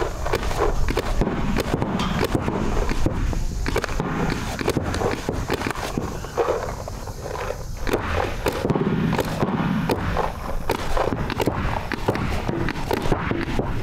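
Paintball markers firing in rapid, irregular strings of sharp pops as two players trade shots, with a short lull about halfway through.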